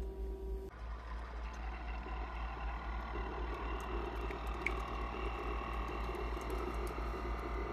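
Nutribullet single-serve pod coffee maker brewing, its pump running steadily as coffee streams into a mug. A steady tone cuts off shortly after the start.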